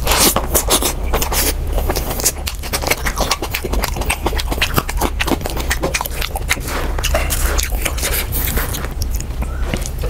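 Wet chewing and mouth smacking on a mouthful of rice and curry, mixed with squelches from fingers working rice and gravy on a banana leaf; a dense, unbroken run of small clicks and crackles.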